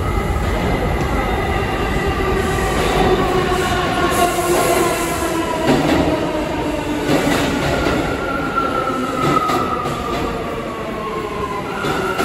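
Bombardier R179 subway train entering the station: its motors whine in several tones that slowly fall in pitch as it slows, over a steady rumble of wheels on rail with a few clacks over the rail joints. Near the end one tone steps back up in pitch.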